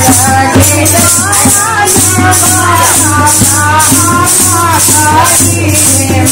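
Women singing a devotional folk song together, with a shaken rattle keeping a steady beat of about two to three strokes a second.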